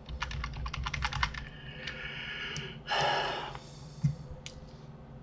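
Typing on a computer keyboard: a quick run of keystrokes in the first second or so, then a short rush of hissing noise about three seconds in, and a few single key or mouse clicks after it.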